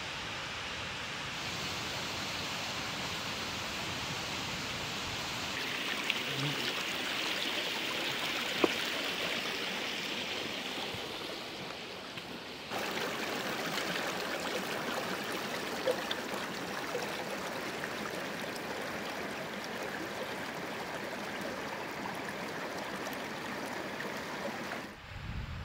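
Mountain stream rushing steadily. The water sound jumps in level and tone at cuts about a second in and about halfway through, and there is one sharp click about a third of the way in.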